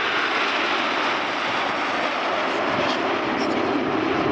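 Formation of Aermacchi MB-339 jet trainers flying past, a steady jet noise without clear rise or fall.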